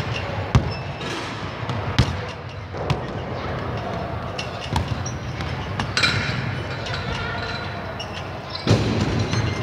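Basketballs bouncing on a hardwood gym floor: about six single, sharp bounces at irregular intervals, with a louder thump near the end, over the steady echoing background noise of a large sports hall.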